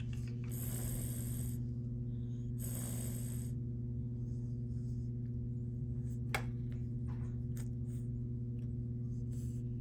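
Siamese cat hissing twice, two short hisses about two seconds apart near the start, over a steady low hum. A single sharp click about six seconds in.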